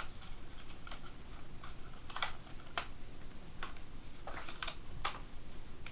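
Irregular small plastic clicks and snaps from a disposable camera being handled as its covering is taken off.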